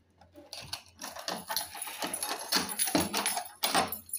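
Padlock and door latch being worked open: a run of irregular clacks and rattles, about three a second, louder from about a second in.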